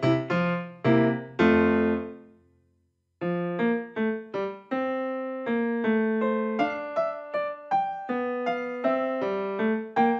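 Background piano music, a steady run of single notes that breaks off into silence for about a second, a little over two seconds in, then starts again.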